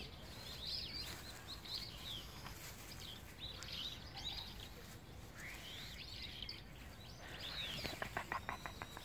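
Small birds chirping and twittering over a steady low background rumble, with a quick rattle of short clicking notes about eight seconds in.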